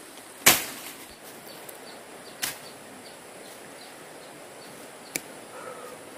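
Three sharp chopping strikes, about two seconds apart, the first the loudest with a short ringing tail, over faint repeated high chirps.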